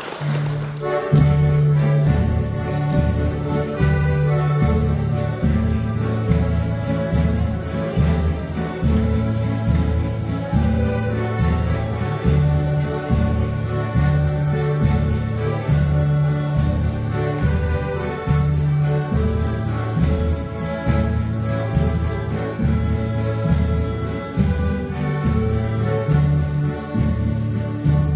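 Lithuanian folk band (kapela) playing the instrumental introduction to a song, before any singing: a repeating bass line with a steady beat and a melody over it.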